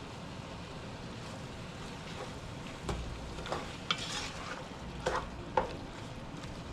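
Ground chicken with onions frying in a pot with a steady sizzle, while a spoon stirs and turns the meat, knocking and scraping against the pot a few times in the middle.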